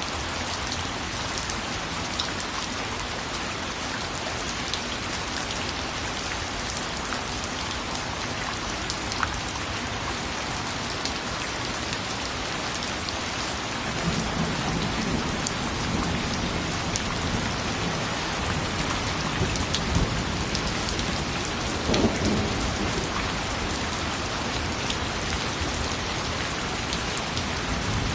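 Steady rain falling, a dense even patter. About halfway through, a low roll of thunder rumbles in and swells louder about three-quarters of the way through.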